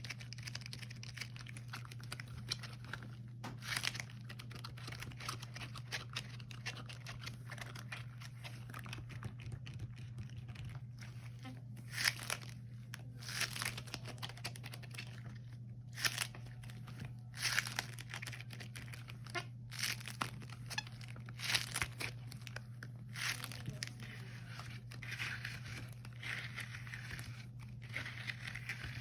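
Rubber gloves handled close to the microphone: continual crinkling, rubbing and sticky peeling of the rubber, broken by several sharp, louder snaps. A steady low hum runs underneath.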